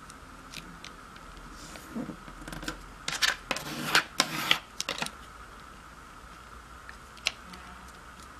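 Origami paper being creased: a thin white stick is pressed and drawn along a fold, making several rough scraping strokes over about three seconds, with lighter paper taps and rustles before and after.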